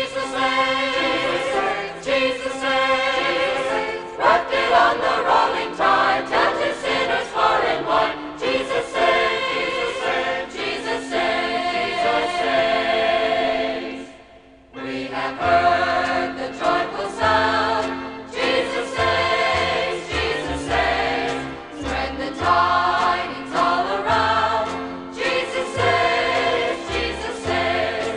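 A choir singing a gospel hymn with instrumental accompaniment, pausing briefly about halfway through, after which a bass line comes in.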